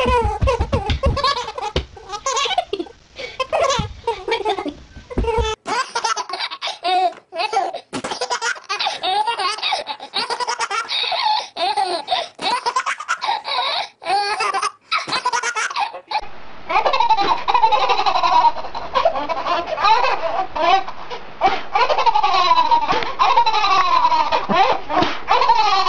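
Babies laughing hard in a run of short home-video clips, with abrupt changes in sound about five and sixteen seconds in where one clip cuts to the next. Near the end two babies laugh together.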